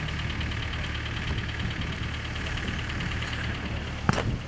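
An engine idling steadily with a rhythmic ticking, and a single sharp crack about four seconds in.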